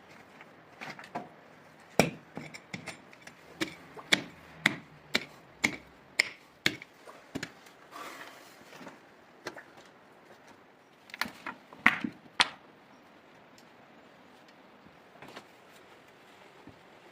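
A tool striking wood again and again, an irregular series of sharp knocks with a short scrape in the middle. The knocks stop shortly after the middle, leaving only a few faint taps.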